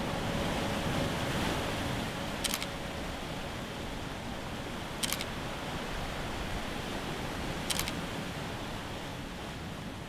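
Surf churning over a rocky shore, a steady rushing noise, with three sharp camera shutter clicks a couple of seconds apart. The surf gradually fades near the end.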